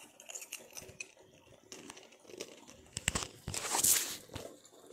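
Rustling and crinkling from a phone being handled over bedding, with scattered small clicks and crunches. A louder burst of rustling comes about three and a half seconds in.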